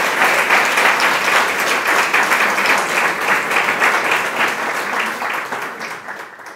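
Audience applauding: many people clapping in a dense, steady patter that thins and fades away near the end.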